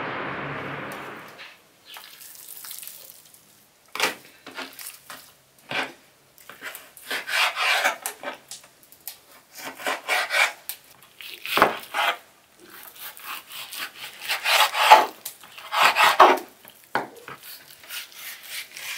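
A knife cutting raw beef on a wooden cutting board: irregular scraping strokes of the blade through the meat, with sharp knocks against the board. Street traffic fades out in the first second or so.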